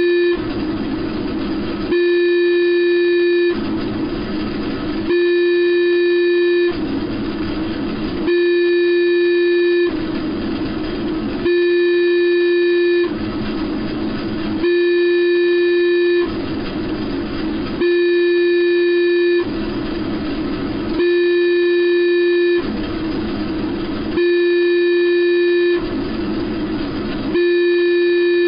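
Synthesized interval signal of a mock shortwave numbers station: a steady tone about a second and a half long, repeating about every three seconds, with static-like hiss filling the gaps between tones.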